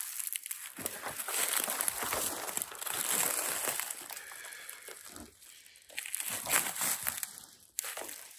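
Footsteps crunching through dry fallen leaves and pushing through dry brush and twigs: an irregular rustling and crackling that eases off about halfway through, then picks up again.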